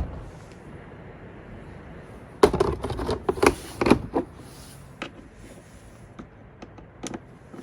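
Handling noise: a cluster of knocks and rattles about two and a half seconds in, lasting under two seconds, then a few scattered light clicks.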